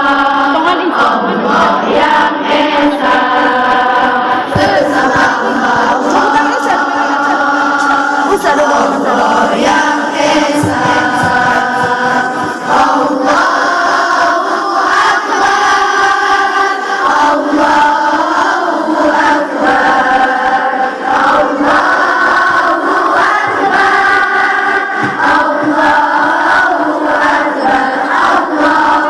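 A student choir singing together, holding long notes that shift in pitch every second or two.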